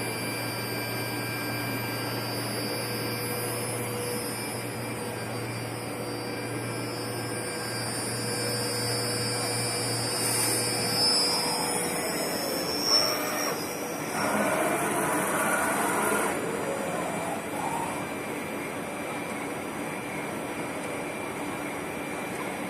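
CNC wood turning-milling machine running, with a steady motor hum and whine. A high tone glides upward about ten seconds in and the low hum stops soon after. A louder rushing noise follows a few seconds later.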